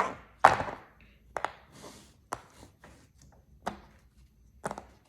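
A series of about nine sharp taps and clicks at irregular spacing, the loudest near the start.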